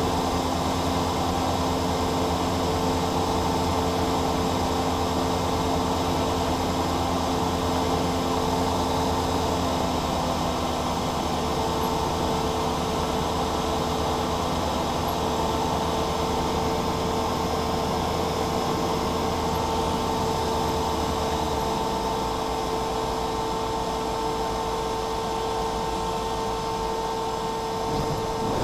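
Cessna 172's piston engine and propeller heard from inside the cockpit, a steady drone with a faint steady hum running through it. About three-quarters of the way through the low part of the drone drops away as power is reduced for the landing.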